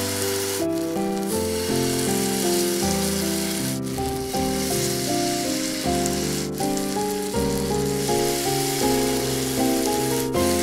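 Fritter batter sizzling and frying in hot fat on a flat nonstick griddle pan, a steady hiss that breaks off for a moment three or four times. Instrumental background music with changing notes plays throughout.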